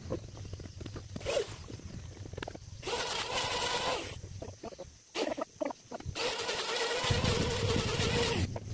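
A hand-held power tool runs in two bursts, a short one of about a second and then one of over two seconds, each starting and stopping abruptly with a steady whine over a rasping noise.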